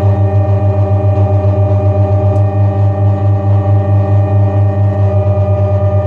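Handmade six-oscillator analog drone synthesizer sounding a loud bass drone with a stack of steady higher tones above it. While fingers press its body contacts, the bass throbs quickly, about seven times a second.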